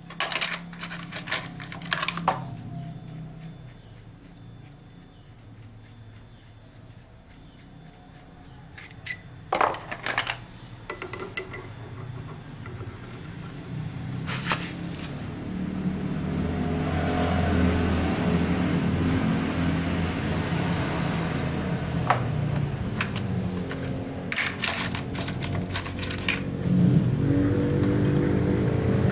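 Metal hand tools clinking and clicking in short clusters as a socket wrench and extension are worked on the engine cover bolts of a Yamaha Mio scooter, during the strip-down to check the stator coil. From about halfway a low steady hum builds up and grows louder.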